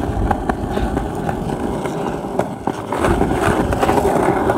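Hoverboard rolling fast over a concrete sidewalk: a steady rumble from the wheels on the pavement, with a few sharp clicks.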